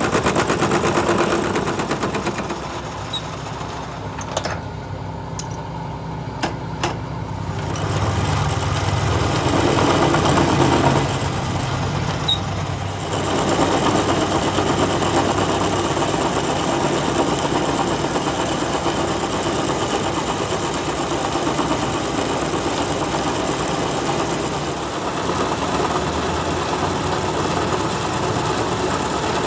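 Metal lathe running steadily, with a few sharp clicks about five to seven seconds in.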